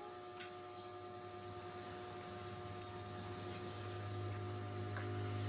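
Steady low hum with a faint hiss, growing gradually louder, with a couple of faint clicks.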